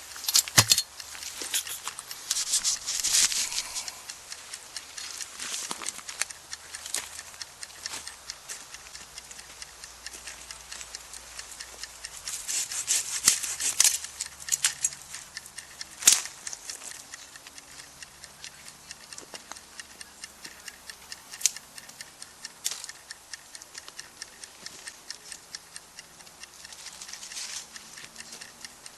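Wood campfire crackling, with a steady run of irregular snaps and pops; the crackle grows busier twice and one loud pop stands out about halfway through.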